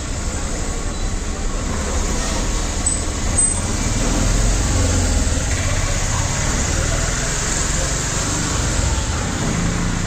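Steady rumble of road traffic with faint voices mixed in.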